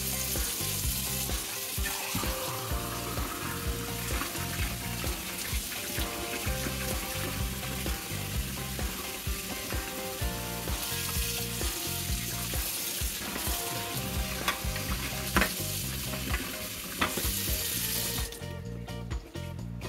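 Kitchen tap running steadily onto a stainless steel mug and into a stainless steel sink as the mug is rinsed. The hiss of water stops about a second before the end. Faint background music with a low beat plays underneath.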